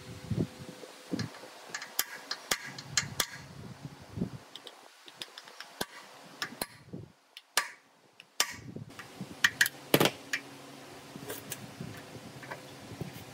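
Workshop handling sounds: scattered clinks, taps and knocks of metal parts and hand tools, irregular and of varying loudness. The background drops briefly to near silence about seven seconds in.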